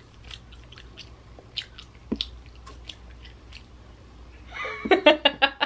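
Small mouth clicks and lip smacks from a woman, then a short, loud burst of laughter near the end.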